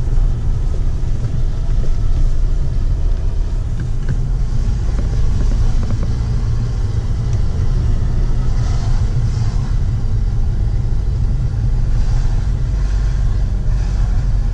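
Steady low rumble of a car being driven, with engine and road noise heard from inside the cabin.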